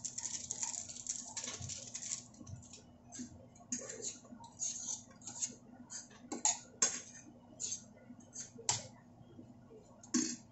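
A spoon and fork stirring and scraping fried tofu and pork cubes in a non-stick frying pan, in short irregular scratchy strokes. A few sharper clinks of metal on the pan come from about six seconds in.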